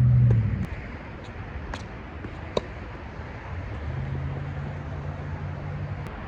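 A low droning hum, like a motor, stops under a second in and comes back about four seconds in. Between the two stretches a single sharp knock stands out over a steady background noise, with a few fainter clicks.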